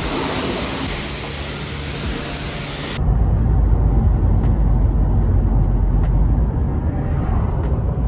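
High-pressure car-wash spray hissing steadily against a car, then, about three seconds in, an abrupt change to the steady low rumble of engine and road noise inside a Fiat 124 Spider's cabin on the move.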